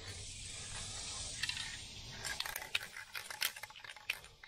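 Aerosol spray can hissing steadily as it sprays a coating onto a vinyl door panel. It stops about two seconds in, and a run of quick, sharp clicks follows.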